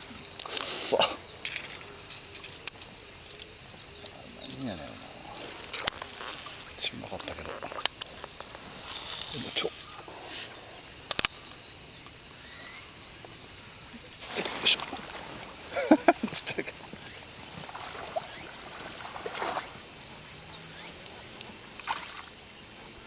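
Dense insect chorus: a steady, high-pitched drone, with a few short knocks and splashes scattered through it.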